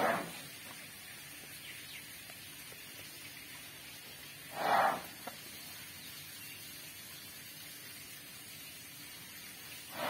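Asian elephant blowing air out through its trunk in short breathy blows, three times about five seconds apart.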